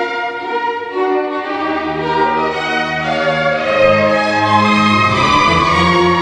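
String orchestra playing held notes, the violins carrying the line; the low strings come in about a second and a half in, filling out the bass.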